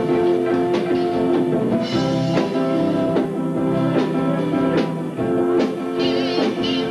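A live band playing: drum kit beats under guitar and several held, chord-like notes.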